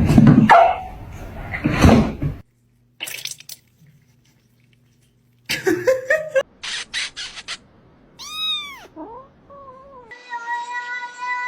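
A cat meowing: one short call that rises and falls, a lower call after it, then a long, drawn-out yowl held on one pitch from about ten seconds in. The first two seconds hold loud, noisy sound, and a few clicks come around six seconds.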